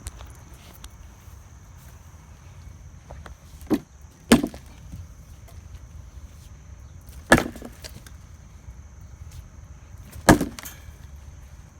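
Sledgehammer striking the concrete footing on a pulled vinyl fence post to break the concrete away: a light blow, then three heavy, single hits about three seconds apart.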